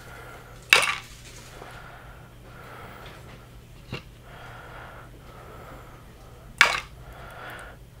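Two sharp sniffs through the nose, about six seconds apart, with a small click about four seconds in.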